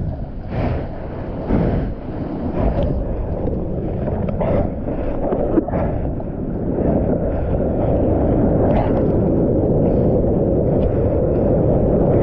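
Ocean water splashing and rushing against a mouth-mounted GoPro, with wind buffeting the microphone. Separate splashes come in the first few seconds, then the rush turns steady and a little louder about halfway through.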